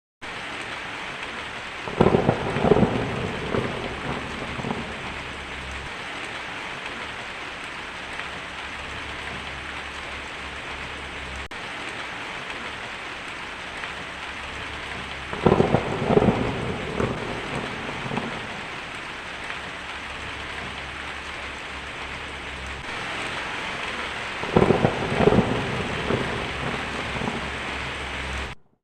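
Heavy rain falling steadily on a tin roof, with three claps of thunder crackling and rumbling: about two seconds in, a little past the middle, and near the end. The sound starts and cuts off abruptly.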